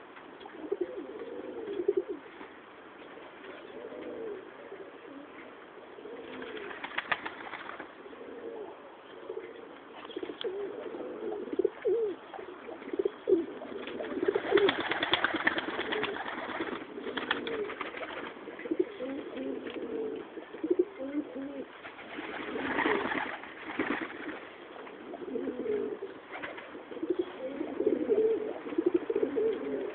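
Domestic tumbler pigeons cooing continuously, several birds overlapping. A few brief louder rustling bursts come through, the biggest around the middle and about two-thirds through.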